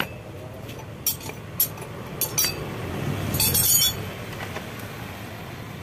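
Steel wrenches clinking on a concrete floor as they are set down: a few separate clinks, then a louder jangle of several tools together about three and a half seconds in.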